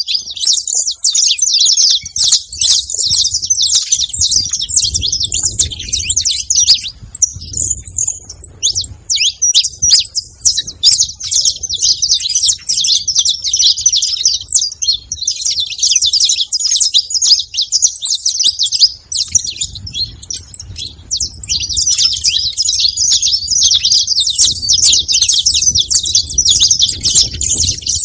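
A flock of saffron finches chirping and calling together: many high, rapid chirps overlapping without a break.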